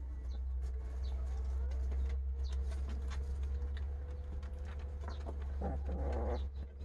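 Birds chirping faintly in the background over a steady low rumble, with scattered small clicks and a brief rougher sound about six seconds in.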